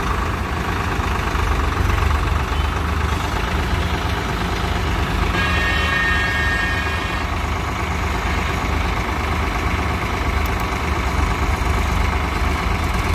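Swaraj tractors' diesel engines running steadily: the nearer one idling while another drives toward it. A steady high-pitched tone sounds for about two seconds near the middle.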